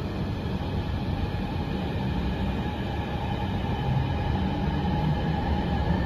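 Metro train with a Times Electric VVVF traction inverter rolling into an underground station, its motors' electronic whine holding at a few steady tones that dip slightly near the end, over the low rumble of the train growing louder.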